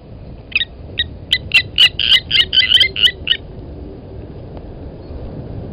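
Blacksmith lapwings giving their sharp, metallic 'tink' alarm calls, about a dozen in quick succession and stopping about three and a half seconds in: nest defence as an impala comes close.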